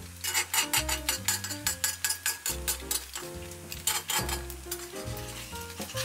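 Egg whites frying and sizzling in an oiled pan while a metal spatula stirs and scrapes through them. Background music with a stepping bass line plays over it.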